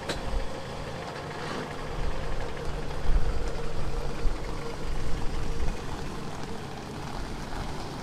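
Toyota RAV4's engine running with a steady low rumble as the SUV moves slowly on a concrete driveway.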